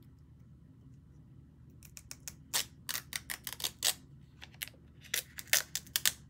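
Light makeup handling sounds: a quick, irregular run of sharp taps and clicks starting about two seconds in, a short pause, then a second run near the end.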